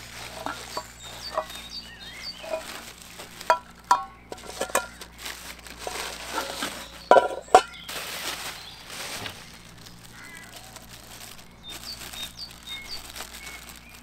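Plastic wrap and bubble wrap rustling and crinkling as aluminium Omnia oven parts are unwrapped and handled, with short clinks and knocks. The loudest are two sharp knocks about seven seconds in. Small birds chirp faintly in the background.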